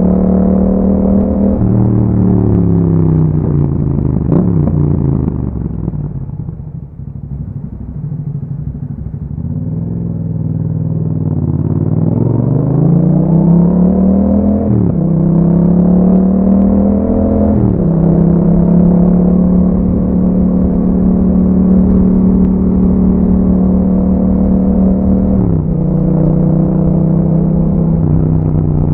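2021 Yamaha MT-07's parallel-twin engine through an Akrapovic exhaust, heard while riding. The revs fall away as the bike slows, then climb again under acceleration. Three upshifts follow, at about 15, 17 and 25 seconds, each dropping the pitch, before it settles into a steady cruise.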